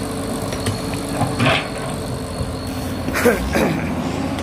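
Hydraulic excavator's diesel engine running steadily under load, with a constant high whine over the engine hum.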